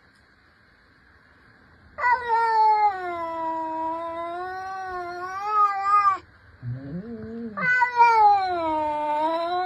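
Domestic cat yowling in long, drawn-out, wavering calls: one about four seconds long starting about two seconds in, a short lower call, then another long yowl falling in pitch near the end.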